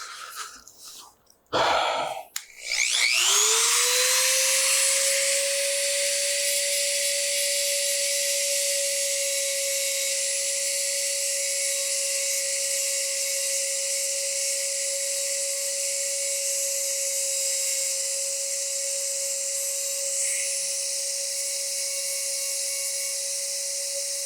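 High-speed electric rotary tool, after a couple of brief starts, spinning up about three seconds in and then running with a steady whine, cleaning up cured epoxy on a wooden rifle stock.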